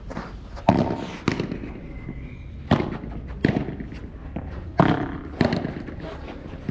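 Padel rally: the ball struck back and forth with padel paddles and bouncing on the court, a string of sharp pocks at uneven gaps, some in pairs about half a second apart.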